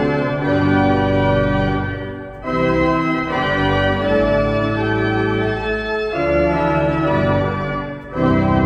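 Wegenstein pipe organ playing sustained chords, with short breaks between phrases about two and a half seconds in and again near the end.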